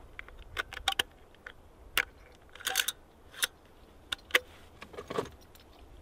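Brass cartridges being pushed one at a time through the side loading gate of a .45-70 lever-action rifle: a series of sharp metallic clicks and clacks at uneven gaps.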